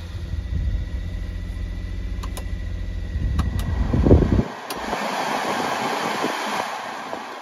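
Suzuki Carry truck's small three-cylinder engine idling, heard from inside the cab, with a few plastic switch clicks as the heater blower fan switch is turned. About four and a half seconds in the engine hum drops away and the blower fan's rush of air takes over.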